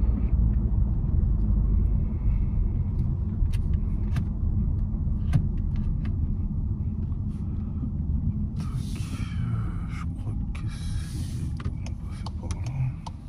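Volkswagen Arteon on the move, heard from inside the cabin: a steady low rumble of road and engine noise that eases off gradually. About two-thirds of the way in a hiss rises for a couple of seconds, with a few faint clicks.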